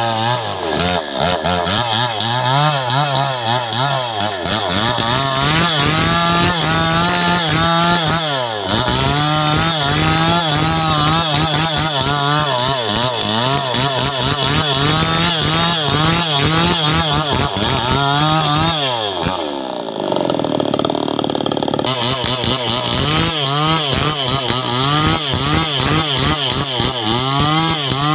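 Homemade chainsaw running continuously, its engine pitch wavering and rising and falling as it is revved while cutting teak. The revs dip briefly about a third of the way in and again about two-thirds in.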